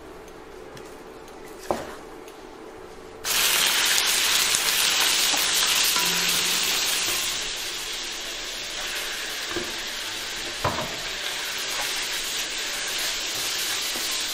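Diced pork hits hot oil and caramelised sugar in a stainless steel pan and bursts into a loud sizzle about three seconds in. The sizzle eases slightly after a few seconds and keeps going as a wooden spatula stirs the meat, with a couple of sharp knocks against the pan.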